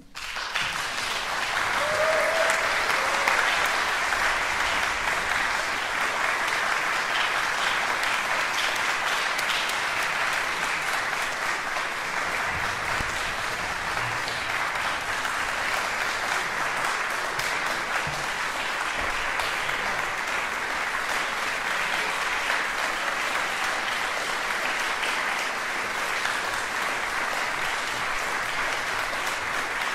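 Concert audience applauding, breaking out all at once and swelling within about two seconds, then holding steady. A single short call rises above the clapping about two seconds in.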